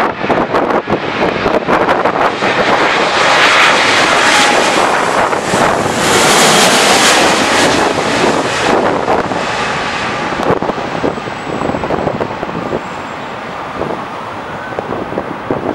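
Boeing 777-200ER's twin Rolls-Royce Trent 892 jet engines on final approach, passing low overhead. The noise swells to its loudest about six to seven seconds in, then fades as the airliner flares to land, leaving a faint high whine. Wind buffets the microphone near the start.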